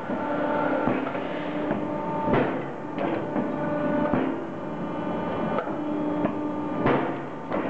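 A motor-driven steel bar shear running with a steady hum, broken by sharp cracks every one to two seconds as its profiled blades cut through a round steel bar.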